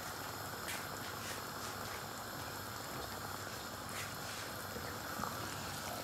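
Chicken and bottle gourd curry simmering in a pan: a steady hiss with a few faint bubbling pops.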